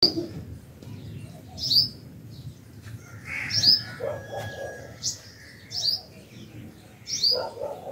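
Birds chirping: about six short, high chirps spaced a second or two apart, with softer, lower calls in the middle and near the end.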